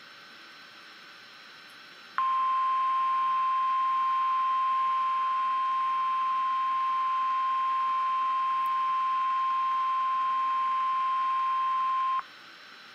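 NOAA Weather Radio 1050 Hz warning alarm tone: one steady, high, unwavering beep that starts about two seconds in and holds for about ten seconds before cutting off, over faint radio hiss. It is the attention signal announcing that a new warning message follows.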